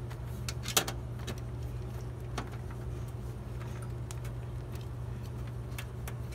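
Scattered light metallic clicks and taps of a screwdriver and hands working at a desktop PC's steel case, the sharpest just under a second in, over a steady low hum.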